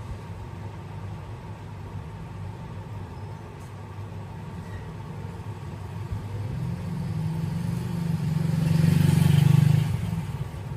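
Low engine rumble of a motor vehicle that builds over a few seconds, peaks loudest about nine seconds in, then falls away as the vehicle passes.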